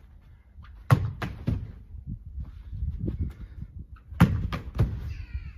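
Football thudding against a brick wall and slapping into goalkeeper gloves on the rebound: two clusters of sharp thuds, about a second in and again about four seconds in.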